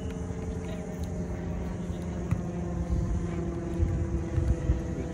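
A steady low rumble with a constant droning motor hum.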